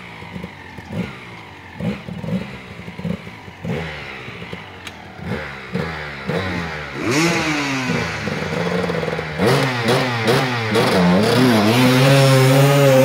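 Enduro dirt bike engine on a steep, leaf-covered climb: short throttle blips at first, then revs rising about seven seconds in and held high, growing louder as the bike comes closer.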